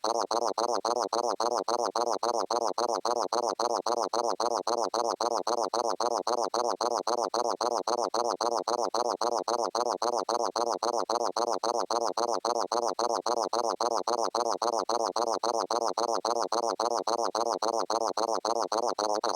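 A short electronic sound looped rapidly and evenly, repeating several times a second in a buzzy stutter, then cutting off abruptly.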